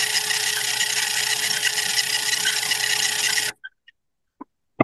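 Steady hiss and static with a low hum running under it, cutting off suddenly about three and a half seconds in; a few faint short clicks follow.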